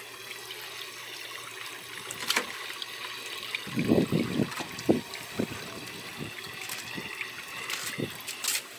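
Water trickling steadily, with a flurry of splashes and knocks in a plastic bucket about four seconds in as a tilapia is handled in it, and a few sharp clicks near the end.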